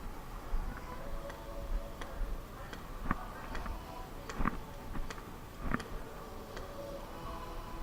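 Airsoft guns firing single shots: sharp clicks at irregular intervals, some close together, others a second or more apart.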